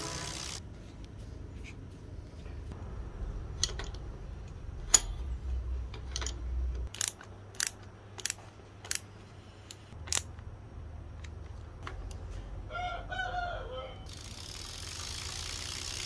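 Metal hand tools clicking and tapping on a bicycle wheel's axle nut and hub, a run of sharp single clicks. A rooster crows once about three seconds before the end, and a steady whirring hiss follows as the wheel spins.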